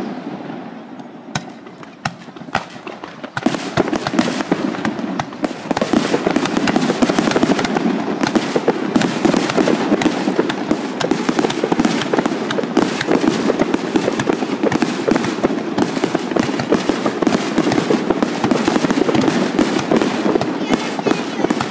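Fireworks display finale. After a short lull with a few scattered bangs, many shells start bursting and crackling in rapid, continuous succession about three and a half seconds in.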